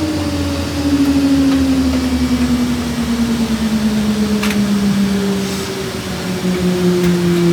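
Jet engine winding down, its whine falling slowly and steadily in pitch over a low roar.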